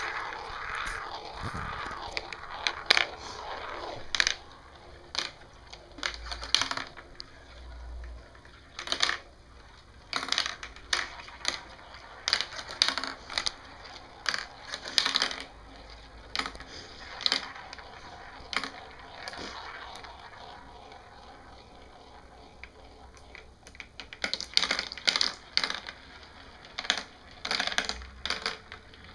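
Steel marbles rolling and clattering down a plastic marble run, an irregular run of sharp metallic clicks and rattles as they drop through funnels and knock against the track pieces. The clicking thins out for a few seconds past the middle, then comes thick again near the end.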